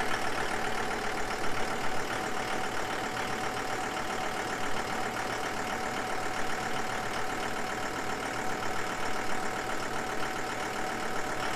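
Farm tractor engine idling steadily, an even mechanical hum with a constant whine running through it.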